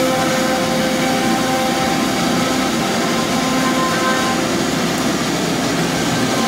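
Four spindles of a CNC router cutting wood together, under dust extraction: a steady machine noise with a few steady whining tones, some of which drop out partway through.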